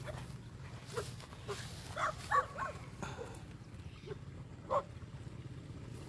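A pig giving short, pitched grunts while rooting in mud, about half a dozen over a few seconds, the loudest in a quick cluster about two seconds in.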